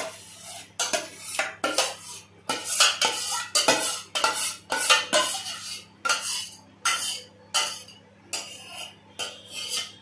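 A steel spoon scraping and knocking thick cooked wood-apple pulp out of one steel pot into another. The metal-on-metal scrapes come one after another at about two a second.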